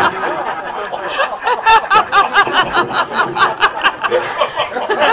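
A man laughing: quieter at first, then from about a second and a half in a fast run of short chuckles, about four a second.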